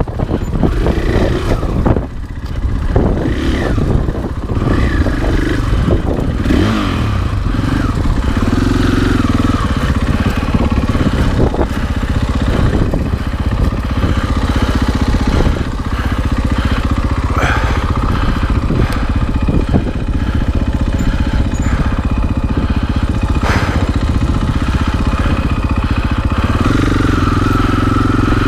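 Husqvarna FE 501 single-cylinder four-stroke dirt bike engine running on a trail ride, its revs rising and falling with the throttle. A few sharp knocks and some clatter come through as the bike goes over rough ground.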